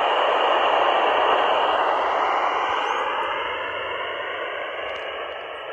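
Steady radio hiss from a home-built Si4735 shortwave receiver in upper-sideband mode on the 20-metre amateur band, heard through its speaker between single-sideband voice transmissions. The noise is muffled, with nothing above the receiver's narrow audio passband. It fades slowly, and faint whistles glide down in pitch through it.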